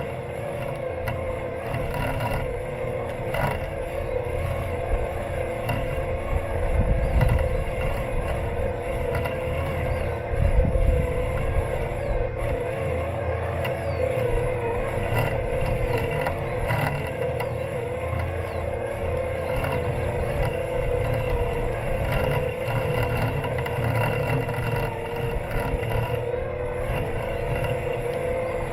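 Robot lawn mower's electric motors running with a steady hum and whine, heard from a camera taped onto the mower, so its vibration comes through as a low, uneven rumble with occasional light knocks as it rolls over the grass.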